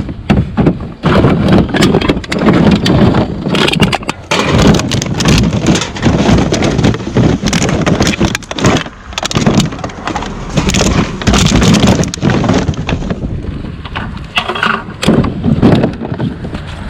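Rummaging through a recycling bin: plastic bags and packaging rustling and crinkling loudly, with irregular knocks and crackles as items are shifted.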